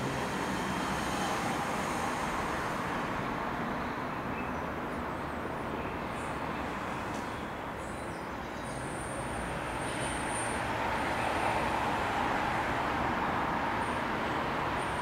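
Steady road traffic noise, swelling a little as a vehicle passes about ten seconds in.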